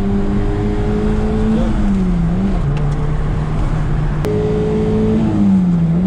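Fiat Uno 1.4 four-cylinder petrol engine heard from inside the cabin while driving, running at a steady pitch that sags briefly as the revs drop, about two seconds in and again near the end. A sharp click comes about four seconds in, after which the engine note is slightly higher.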